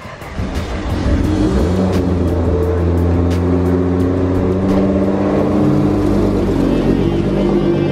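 A 1000 hp widebody Nissan GT-R's engine running with a deep, steady note as the car pulls in, the sound growing loud about a second in.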